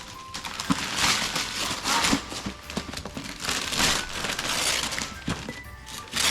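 Gift wrapping being torn open and crumpled by hand: several loud paper rustles with short pauses between them.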